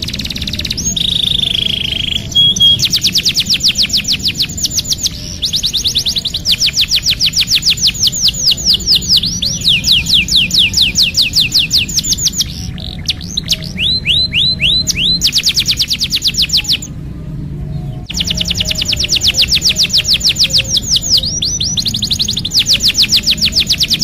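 Domestic canary singing: long rolling trills of rapid, evenly repeated down-slurred notes, many per second, in phrases broken by short pauses, opening with a steady whistled note.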